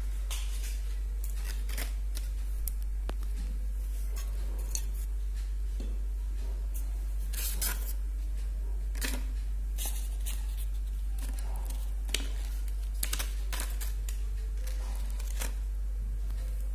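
Scattered small clicks, taps and rustles of handling close to the microphone, over a steady low hum.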